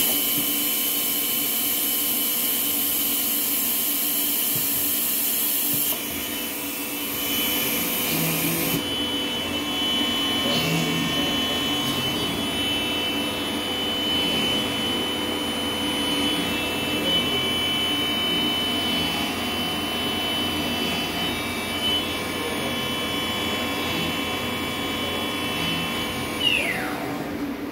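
HOMAG PROFI BMG211 CNC machining center's router spindle running at speed with a steady high whine over the machine's hum. A loud hiss lasts for the first eight or nine seconds. Near the end the whine falls away as the spindle spins down.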